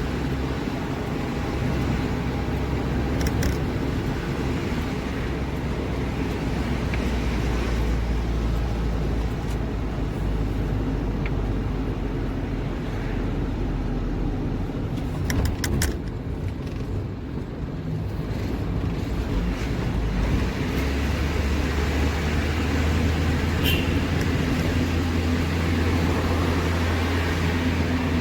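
Delivery truck on the move: steady engine hum and road noise, with a few sharp clicks about halfway through and a change in the engine's low hum about two-thirds of the way in.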